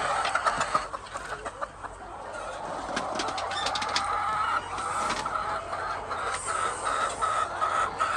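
Hens clucking, a run of short repeated calls that grows more regular in the second half, with scattered clicks and knocks in the first few seconds.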